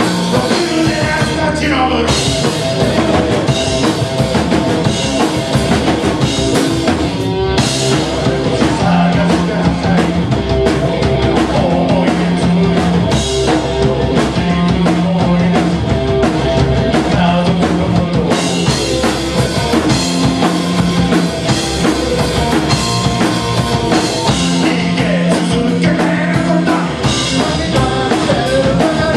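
Rock band playing live: two electric guitars and a drum kit, loud and steady.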